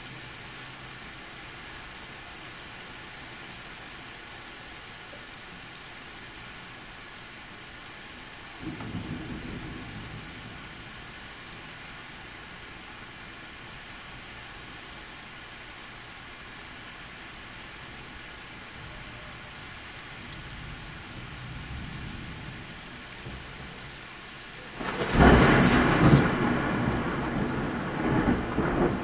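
Thunderstorm: steady rain, with a low rumble of thunder about a third of the way in, then a sudden loud clap of thunder near the end that rolls on.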